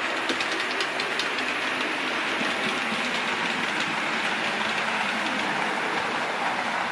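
A 4mm-scale model train of coaches rumbling past, its wheels clicking over the rail joints. The clicks come quickest and plainest in the first second or two.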